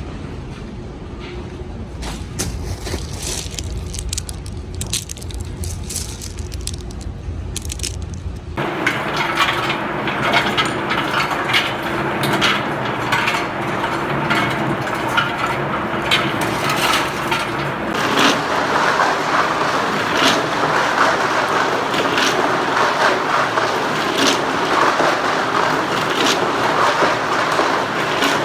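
Rock and stones cracking and clattering as an excavator works in rock. A low machine rumble lies under the first part and drops out abruptly about nine seconds in, where the sound turns to a denser, steady crackling clatter.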